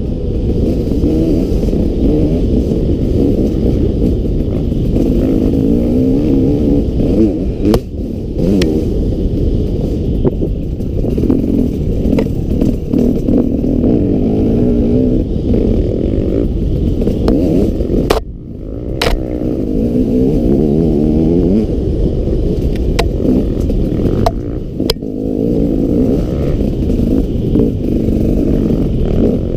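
Enduro motorcycle engine heard from on the bike, its pitch rising and falling again and again with the throttle as it rides a rough trail, with scattered sharp knocks and clatter. The engine drops off for a moment about eighteen seconds in.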